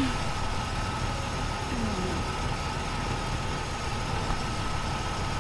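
A car engine idling steadily, a low even rumble with a thin steady whine above it.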